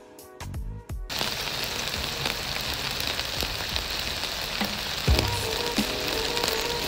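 Background music, then from about a second in, tandoori chicken pieces sizzling steadily on aluminium foil over a barbecue hot plate, with small crackles throughout.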